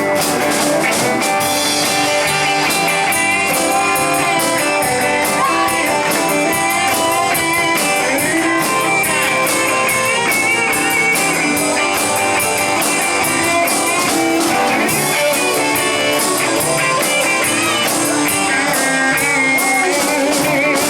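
Country band playing an instrumental break: a guitar lead with bending, wavering notes over a steady drum-kit beat and backing chords.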